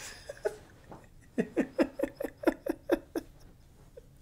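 A man laughing: a few soft breaths, then from about a second in a quick run of about ten short laughs, each dropping in pitch.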